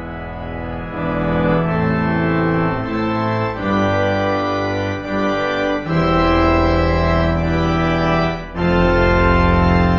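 Sampled church pipe organ playing slow, sustained full chords that change every second or two. It grows louder about a second in, a deep pedal bass joins about six seconds in, and after a brief break near the end a last loud chord is held.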